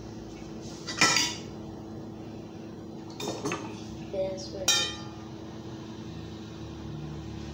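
Clanks of an enamelled metal dish and a metal utensil being handled: a loud clank about a second in, a couple of lighter knocks around three seconds, and a ringing clank near five seconds, over a steady low hum.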